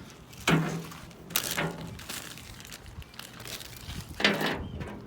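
Parts of a pickup's tailgate being handled and fitted back on: a few sharp knocks and clicks about half a second in, around a second and a half, and again near the end, with rustling and crackling in between.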